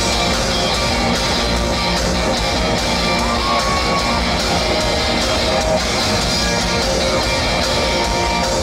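Live rock band playing loudly through a PA, with electric guitar.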